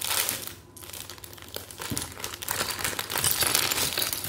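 A crinkly plastic toy wrapper being crumpled and worked open by hand. The dense crackling eases about half a second in, then builds again and is busiest near the end.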